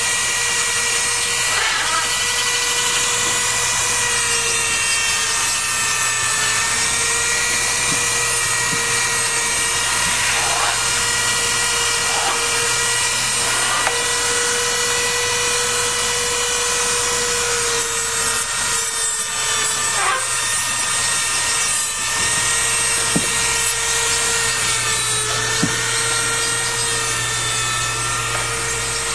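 Small rotary power tool, a nail grinder, running with a steady whine whose pitch wavers slightly as it grinds down a macaw's nails.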